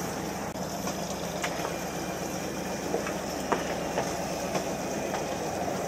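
Fishing boat's engine running steadily as a low hum, with a few scattered light clicks over it.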